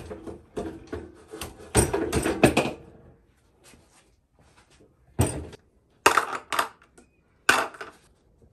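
Clunks and clattering knocks as a small Tecumseh four-stroke engine is lifted off the lawn edger's frame, most of them in the first three seconds. A few separate thumps follow as it is set down on a table, with small parts in a plastic tray.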